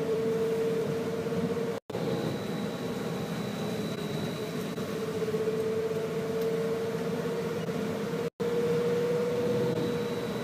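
Inside a BKM 321 trolleybus moving slowly in traffic: a steady electrical whine from its drive equipment over the cabin's rumble. The sound cuts out for an instant twice.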